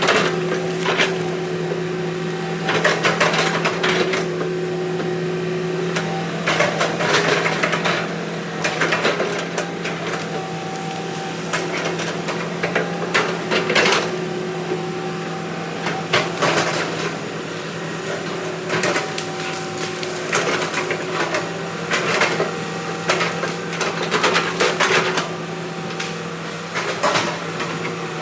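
Diesel engine of heavy earthmoving machinery running steadily, with repeated knocks and clattering spells of metal and wood working over it.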